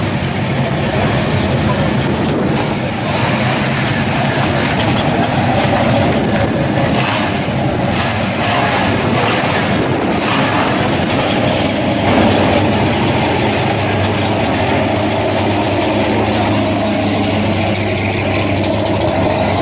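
Classic car engines running with a steady, loud exhaust rumble as the cars are driven slowly past at low speed: an orange second-generation Chevrolet Camaro, then a yellow early Ford Falcon.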